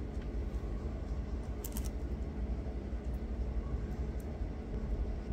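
Steady low background rumble, with a few faint clicks about two seconds in.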